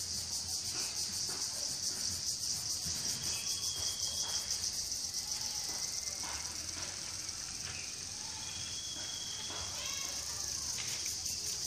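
Steady, high-pitched, finely pulsing drone of an insect chorus, with a few short bird chirps now and then.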